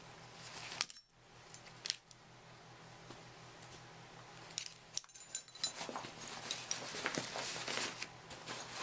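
Small metal tools clinking and clicking as they are handled and put away in a bag, with one ringing metallic clink about two-thirds of the way through and busier rattling and rustling toward the end.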